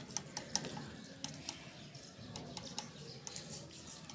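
Light, irregular clinks and clicks of a spoon against a steel plate while eating, a few a second.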